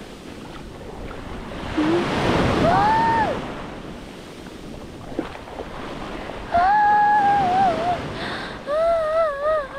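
Surf washing onto a sand beach, with wind on the microphone, while a man hums or sings a few wavering, wordless notes, briefly about three seconds in and louder in the second half.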